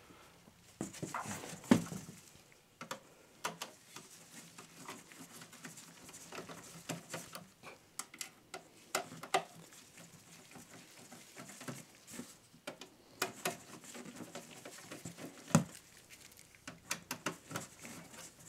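Phillips screwdriver working the power supply's rear screws out of a steel PC case: faint irregular clicking and scraping of the bit in the screw heads and gloved hands on the metal chassis, with one sharper knock about three-quarters of the way through.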